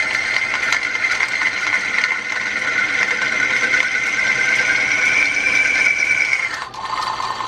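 Small bench metal lathe running with a steady high whine; near the end the whine drops out for a moment and a lower tone takes its place.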